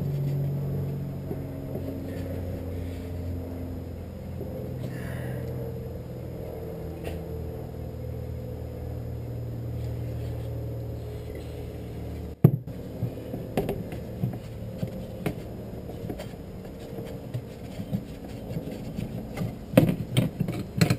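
A steady low mechanical hum stops with a sharp click about twelve seconds in. After it come scattered clicks and knocks from a bar clamp being cranked and handled, busier near the end.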